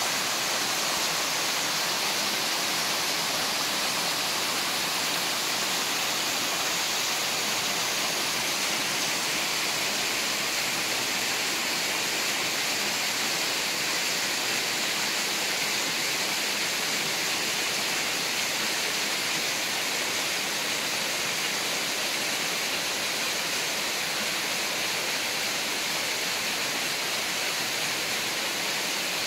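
Small waterfall splashing down onto rocks, a steady rush of falling water that holds an even level throughout.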